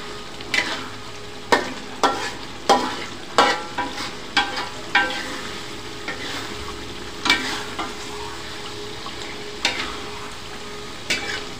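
Metal ladle stirring a thick simmering beef-and-coconut-milk sauce in an aluminium wok, scraping and knocking against the pan about a dozen times at an uneven pace, with a steady sizzle of the simmering sauce underneath.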